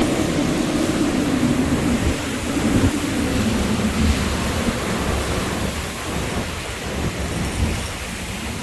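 Hurricane-force wind gusting and blasting on the microphone, with driving rain, a loud continuous rush that swells and eases a little, heaviest in the first few seconds.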